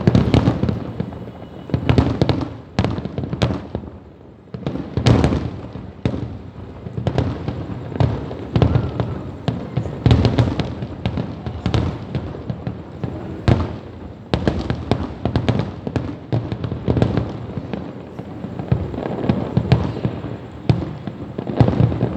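Fireworks going off in an irregular run of bangs and crackles, several a second at times, with rumbling echo between them.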